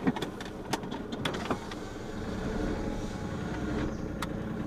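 A car running, heard from inside the cabin: a steady low engine and road rumble, with a few light clicks in the first second and a half.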